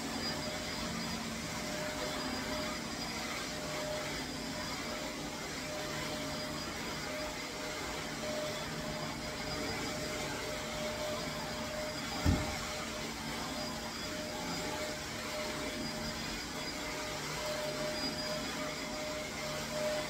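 Shark upright vacuum cleaner running steadily while being pushed over carpet: a constant motor noise with a steady whine. There is one sharp thump about midway.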